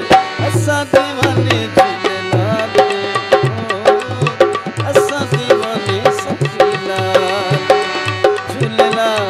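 Instrumental interlude of a Punjabi Sufi folk song: a harmonium playing a melody in short held notes over a steady, driving hand-drum rhythm.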